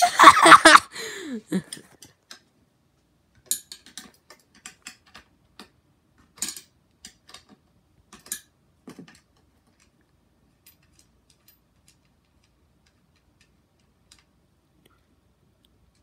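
A brief, loud high-pitched squeal at the very start, sliding down in pitch as it ends, followed by a scattered run of light clicks and ticks from small metal parts and screws being handled during disassembly of a ceiling fan light kit, dying away after several seconds.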